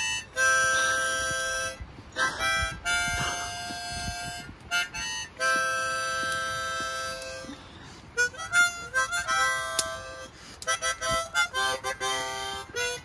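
Harmonica playing a tune: long held chords at first, then quicker, shorter notes in the second half.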